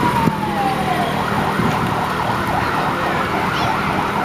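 Emergency vehicle siren: a long downward-gliding tone that ends about a second in, then a fast rising-and-falling warble.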